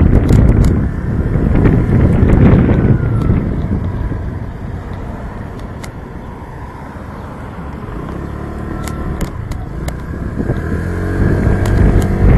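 Motorcycle riding with wind rushing over the microphone and the engine running underneath. It grows quieter through the middle, then builds again near the end with the engine note rising.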